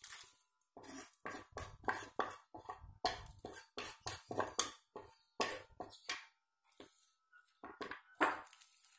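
Knife blade scraping and tapping chopped chillies and shallots off a wooden cutting board into a plastic bowl: a quick run of short scrapes and knocks. Near the end a louder knock as the wooden board is set down on the tiled floor.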